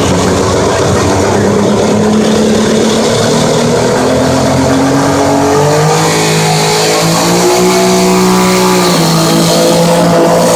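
Diesel engine of a modified garden pulling tractor running loud under load, pulling a weight sled. About six seconds in it revs up as the pull gets going, its pitch climbing and wavering before settling again near the end.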